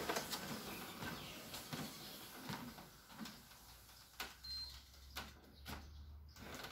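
Running footfalls on the belt of a BAAM BAAM-001A electric treadmill at its top speed of 14, a fast, even run of knocks that fades over the first few seconds as the runner steps off onto the side rails. After that there is a low steady hum from the treadmill and a few separate knocks.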